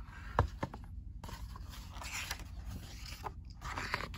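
Pages of a picture book being turned by hand: a couple of light clicks, then paper rustling and sliding for a couple of seconds.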